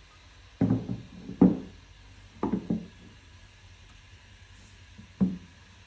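A wooden board with two steel-bar clamps fixed to it knocking against a wooden workbench top as it is handled and set down: about six sharp wooden knocks, some in quick pairs. The loudest comes about a second and a half in, and the last comes near the end.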